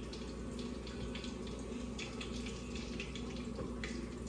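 Battered flounder deep-frying in a pot of hot grease: a steady sizzle with many small irregular crackles.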